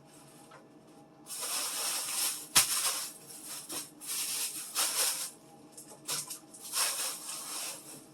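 Food packages and containers handled and rustled, in three noisy bursts of about a second each, with one sharp clack about two and a half seconds in.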